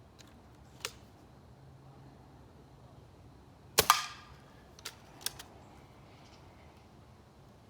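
A .22 Stoeger ATAC break-barrel air rifle firing a single pellet shot about four seconds in: a sharp crack with a brief ringing tail. A few small clicks from the rifle being handled come before and after it.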